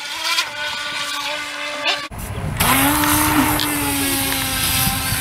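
Battery-powered RC speedboat running fast across the water, its motor whining steadily. About two seconds in the sound cuts to a louder run, with a hiss of spray under the motor's whine.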